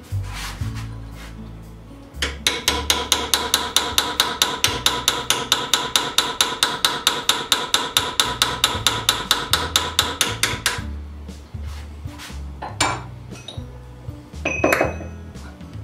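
Hammer driving a diamond point cold chisel to cut a groove in a steel bar held in a vise: a quick, even run of ringing metal-on-metal taps, about five a second for some eight seconds, then a couple of single blows near the end.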